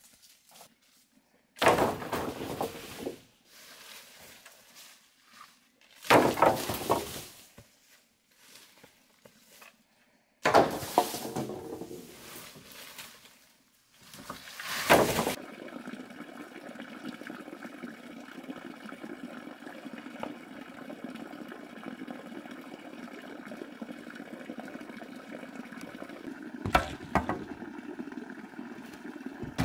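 Several loud bursts of rustling and crunching in dry forest leaf litter and undergrowth, as a person moves through it handling a long pole. From about halfway a steady hiss takes over, with one short sharp crack near the end.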